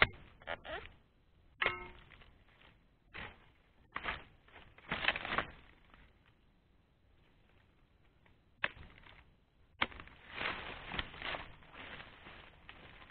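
Oil palm harvesting chisel (dodos) chopping at the stalk of a fruit bunch on a young palm: a series of sharp knocks, one of them ringing briefly like struck metal, with a denser cluster of blows about five seconds in. Rustling through leaves and undergrowth follows near the end.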